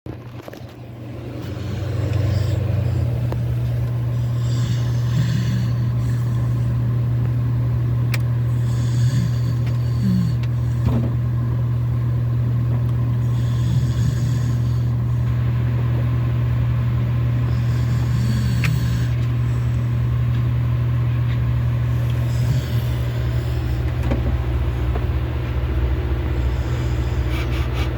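Sleeping dog snoring, one noisy snoring breath about every four seconds, over a steady low mechanical hum.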